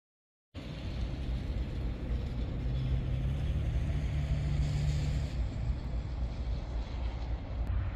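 Diesel locomotive approaching, a steady low engine drone with a hum that steps up in pitch about three seconds in, over a steady hiss. The sound cuts in abruptly about half a second in.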